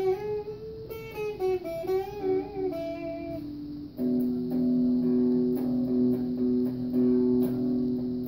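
Electric guitar being played: sustained single notes with bends for the first few seconds, then from about four seconds in a louder, steadier riff of repeated two-note chords.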